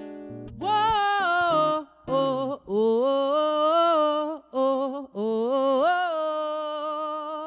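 A few acoustic guitar chords, then a woman singing long wordless held notes with sliding pitch, unaccompanied, in four phrases with short breaks between them.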